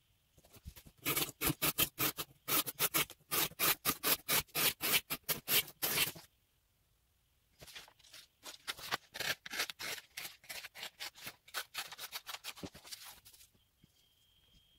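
A knife blade of CPM REX45 steel on a Spyderco Manix 2 Lightweight slicing through corrugated cardboard in an edge-retention cut test, with crisp rasping cuts in quick succession. There are two runs of cuts of about five seconds each, with a short pause between them.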